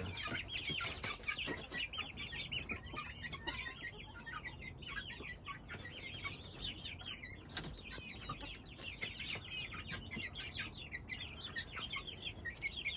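A flock of chickens in a coop calling without pause: a dense, overlapping chatter of short, high calls.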